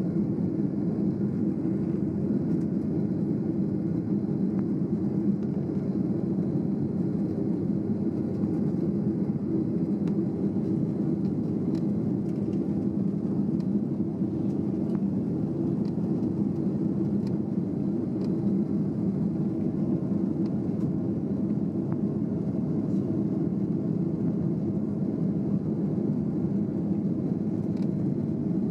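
Jet airliner's engines and airflow heard from inside the passenger cabin during the climb after takeoff: a steady, even low drone that does not change.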